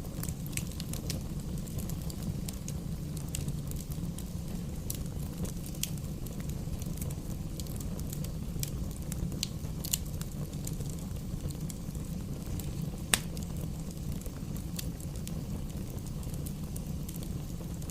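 Wood fire in a fireplace crackling, with a steady low rumble of the flames and irregular small pops and snaps, one sharper pop about two-thirds of the way through.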